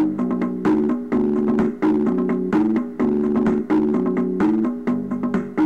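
Background music: a keyboard tune with held organ-like chords and a steady, repeating rhythm.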